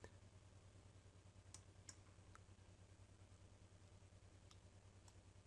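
Near silence: faint room tone with a handful of faint computer mouse clicks.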